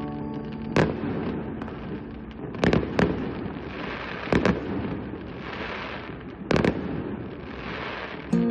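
Fireworks going off: a steady crackle of bursting shells that swells and fades several times, broken by about half a dozen sharp bangs.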